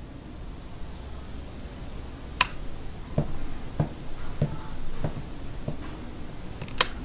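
A person's footsteps, five dull steps about 0.6 s apart, framed by a sharp click before them and another near the end.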